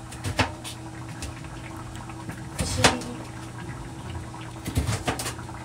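Ceramic knife cutting vegetables on a plastic cutting board: three short clusters of cuts and taps about two seconds apart, over a steady low hum.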